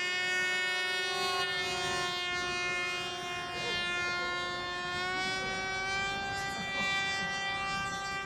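Radio-control model airplane's motor and propeller at full throttle after a hand launch: a steady high-pitched whine with many overtones, its pitch edging up slightly about five seconds in.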